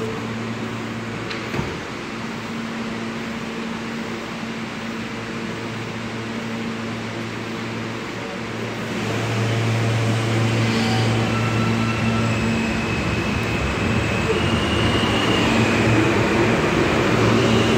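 New York subway train standing at the platform with a steady electrical hum. Its doors shut with a knock about two seconds in. About nine seconds in it pulls out and gathers speed, the traction motors' whine rising in steps as the train gets louder.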